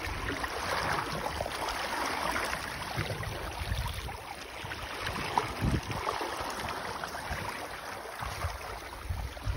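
Water rushing and splashing in the wake of a sailing yacht under way, with uneven gusts of wind on the microphone.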